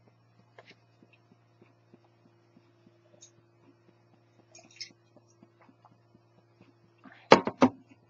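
A heavy glass mug holding whisky and ice set down on a table near the end: two quick loud knocks, the first the louder, with a glassy ring. Small clinks of ice in the glass come earlier, over a faint steady hum with soft regular ticks.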